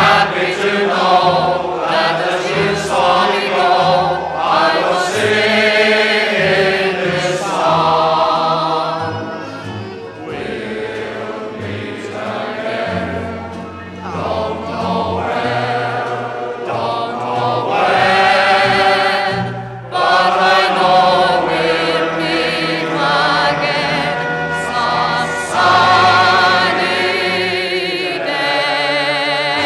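Choral music: a choir singing.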